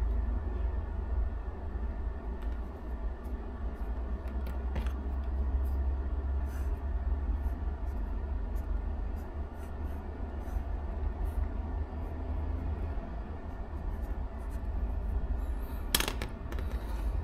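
Pen writing and drawing on paper, faint scratchy strokes and light ticks over a steady low hum. About sixteen seconds in there is one sharp click as the pen is set down on the bench.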